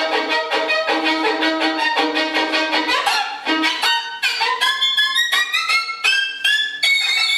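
Instrumental music with a violin-like sound: fast repeated notes at first, then, from about three seconds in, separate higher notes that each slide up into their pitch.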